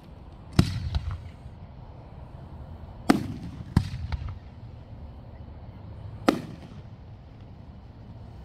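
Aerial firework shells bursting overhead: four sharp booms, the middle two close together, each trailing off in a rolling echo.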